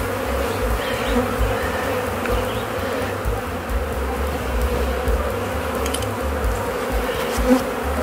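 A dense crowd of honeybees buzzing around an open hive, a steady drone, with a low rumble underneath.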